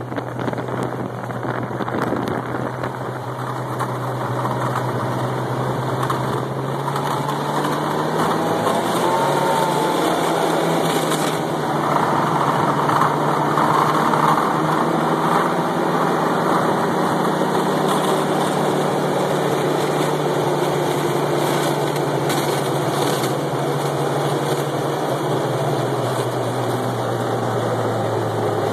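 A motor vehicle's engine running steadily. Its hum steps up in pitch several seconds in and eases back down near the end.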